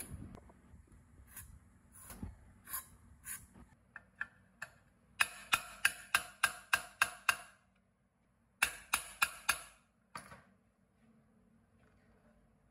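Sharp metallic clicks from a nut driver working a nut on the floor of a small flour mill's aluminium grinding chamber, the bowl ringing with each click. A few separate clicks come first, then two quick runs of about four to five clicks a second, and then it goes quiet near the end.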